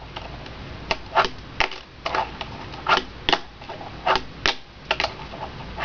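A fingerboard being popped, flipped and landed on a hard surface: sharp plastic clacks of the deck and wheels, about a dozen at an uneven pace, some in quick pairs.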